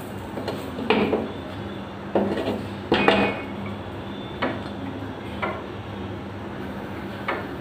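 Cooking utensil clattering and scraping against a frying pan while an omelette cooks, in about six separate knocks, loudest about three seconds in, over a steady low hum.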